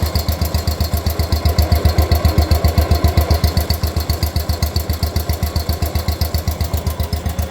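Farmhandy three-wheel tractor's small engine running steadily through its muffler, an even low putter of about eight exhaust pulses a second.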